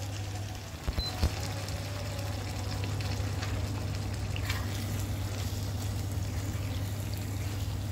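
Food bubbling and sizzling on the stove: spiced rice boiling in a steel pot, a spoon knocking against the pot a few times about a second in, then a chicken and tomato masala sizzling in a frying pan as a spatula stirs it, over a steady low hum.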